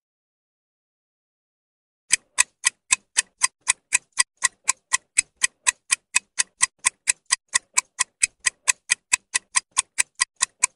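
Quiz countdown-timer sound effect: sharp, clock-like ticks at an even pace of about four a second, starting about two seconds in after silence.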